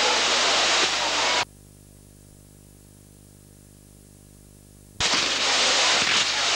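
Ground fireworks, spinning wheels and fountains, hissing and crackling loudly. About a second and a half in, the sound cuts out suddenly, leaving only a faint low hum, a gap in the recording. After about three and a half seconds the hissing and crackling comes back just as suddenly.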